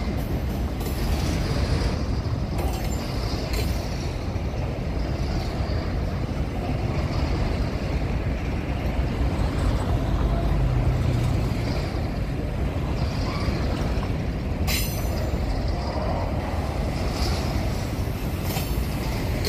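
Empty grain hopper cars rolling slowly along the track: a steady low rumble with a few sharp clanks.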